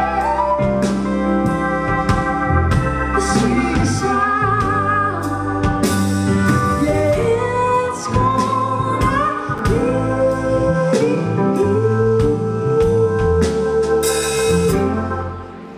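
A live band plays with a female lead singer: keyboard, electric guitar, bass and drums under a soulful vocal. Near the end the singer holds a long note over a cymbal crash, and then the band stops.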